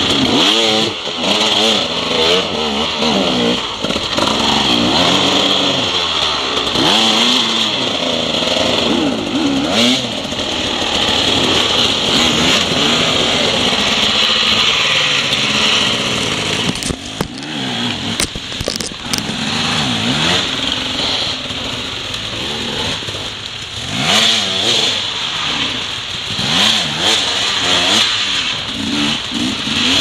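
Enduro dirt bike engine revving up and down as it is ridden over rough trail, its pitch rising and falling with the throttle, with a few sharp knocks a little past the middle.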